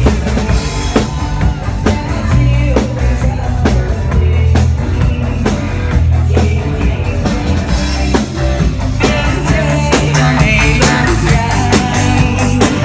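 Live band playing an up-tempo song: a drum kit keeps a steady beat under bass and guitar.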